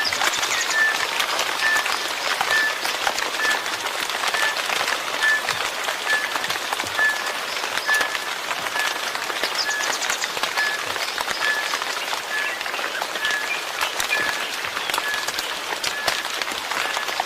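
Steady rain falling, a dense patter with many individual drops striking. A short high chirp repeats evenly through it, a little more than once a second.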